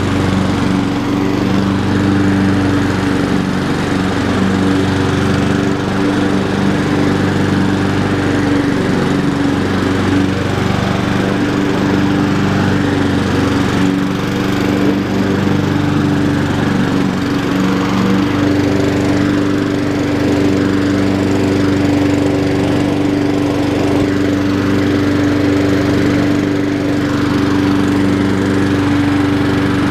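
Honda HRR216 walk-behind lawn mower's engine running at a steady speed while mowing grass.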